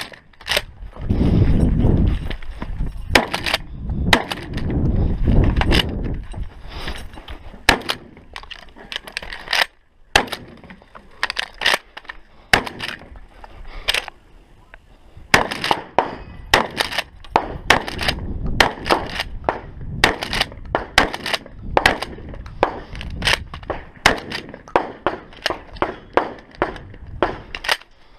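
Gunfire on a shooting range: many sharp shots in irregular quick succession, coming thicker and faster in the second half. Two spells of low rumble a second or two long sit among the shots in the first few seconds.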